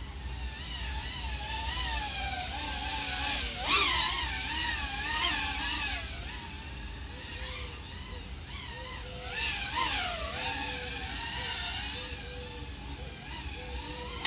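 Brushless motors of an iFlight AOS 3.5-inch V5 FPV quadcopter (XING 1504 3100KV) spinning Gemfan propellers, a whine whose pitch wavers up and down with the throttle. It swells loudest about four seconds in and again around ten seconds in.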